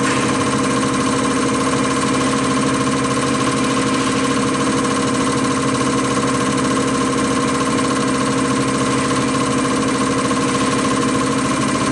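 Common rail injector test bench running an injector test at 160 MPa rail pressure: the motor-driven high-pressure pump and the firing injector make a loud, steady mechanical hum with a continuous hiss.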